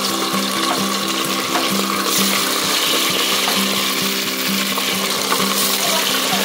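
Thin strips of marinated beef sizzling in hot oil in a deep pot, the sizzle growing louder about two seconds in as more strips go into the oil.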